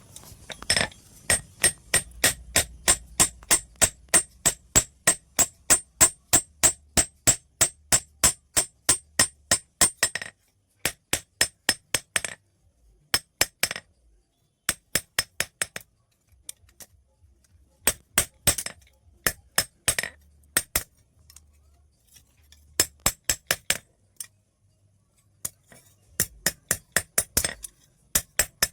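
Blacksmith's hand hammer striking a steel scissor blade on an anvil as it is forged into a knife, each blow giving a ringing metallic clink. An even run of about four blows a second lasts roughly ten seconds, then comes short series of blows with pauses between them.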